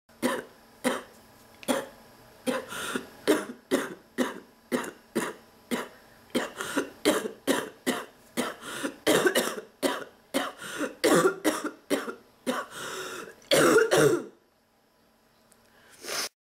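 A sick person's harsh, barking cough in a long non-stop fit, a couple of coughs a second, breaking off about fourteen seconds in, with one more short cough near the end.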